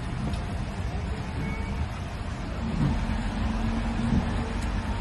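Steady low rumble of vehicle and street noise, with a faint held tone about three seconds in.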